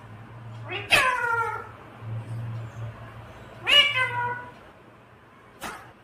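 Ring-necked parakeet giving two meow-like calls, each sliding down in pitch, about three seconds apart.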